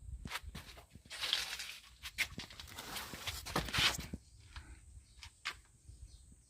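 Rustling and scraping with scattered sharp clicks, loudest about a second in and again around three to four seconds in.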